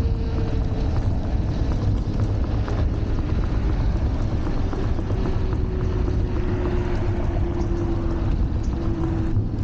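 Wind buffeting the microphone over the whine of the Wolf Warrior 11+ electric scooter's hub motors while riding; the whine's pitch sinks slowly and it fades out near the end.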